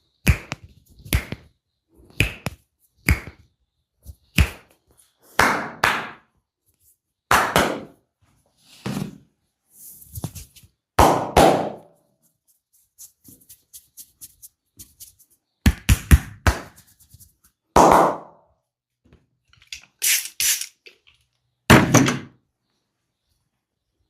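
Percussive massage strokes landing on a body: a string of sharp slaps and thumps, irregularly about one a second, with a lull of faint light taps around the middle.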